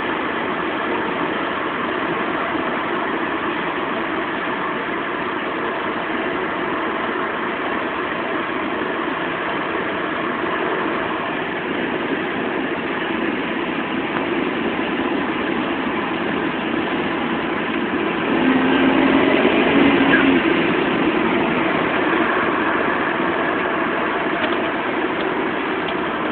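Volvo S80 T6 running on the road at speed: steady engine and road noise with a whinny noise that the owner cannot trace. There is a louder stretch about 18 seconds in, carrying a brief steady tone.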